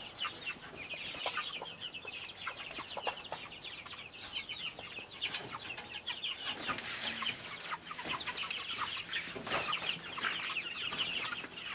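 A flock of growing chickens cheeping and clucking, many short, high, falling chirps overlapping one another without a break.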